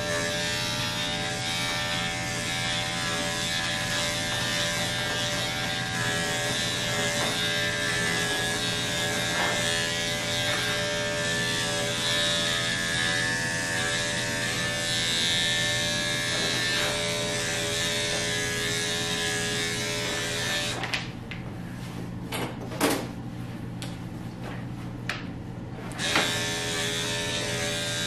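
Electric dog grooming clippers fitted with a guard comb, running with a steady buzzing hum as they cut through a puppy's thick body coat. About three quarters of the way through, the buzz drops to a quieter hum and a few sharp clicks follow.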